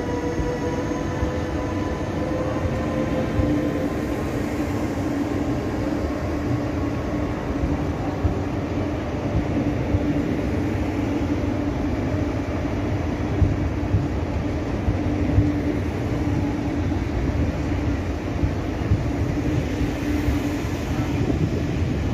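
MÁV class 480 electric locomotive and its passenger coaches rolling slowly past and away. The locomotive's whine, a few high steady tones, drops slightly and fades in the first few seconds. Then the coaches go by with a steady wheel-on-rail rumble, a low hum and occasional clacks over rail joints.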